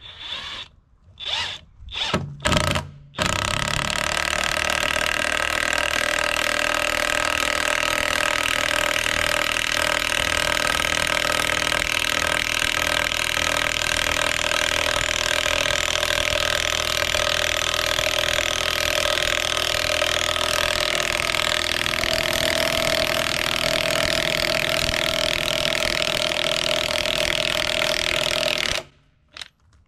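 DeWalt DCF899 cordless impact wrench on its highest setting, driving a half-inch by 8-inch lag bolt into a wooden beam. A few short bursts on the trigger come first, then one steady run of hammering for about 25 seconds that cuts off suddenly near the end, when the bolt is in.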